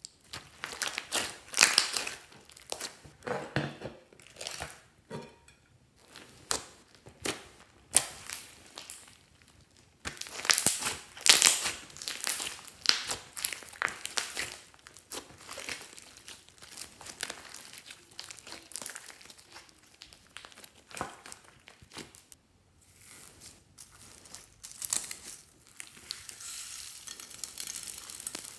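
Foam-bead fluffy slime being squeezed and kneaded by hand and spread with a plastic scraper, giving irregular crackling and popping. The crackles come in bursts, loudest in the first few seconds and again about ten seconds in.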